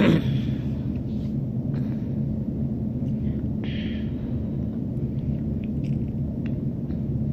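Steel ladle stirring onions, garlic and green chillies frying in ghee in a steel kadai, with light clicks and a short scrape against the pan about four seconds in, over a steady low rumble.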